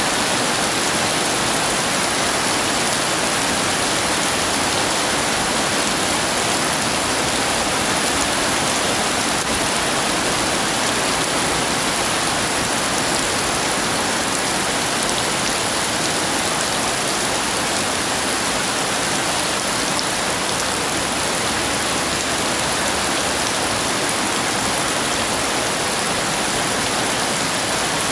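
Heavy rain pouring down in a steady, dense downpour, with no thunder in this stretch.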